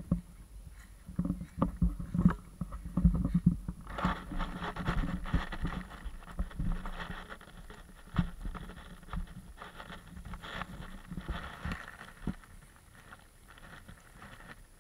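Muffled bumps and knocks on an SJ4000 action camera's housing as it moves through the grass, turning about four seconds in to a denser rustling and scraping of grass against the case.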